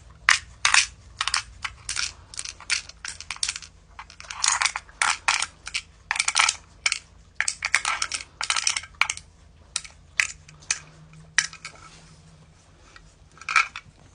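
Small magnetic pieces of a magnet fidget toy clicking as they are pushed down and pulled back up with its magnetic pen: a rapid, uneven run of sharp clicks that thins out after about ten seconds, with a couple more near the end.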